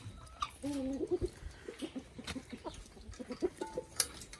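Domestic hen clucking: a drawn-out call about half a second in, then a run of short clucks, with a sharp click near the end.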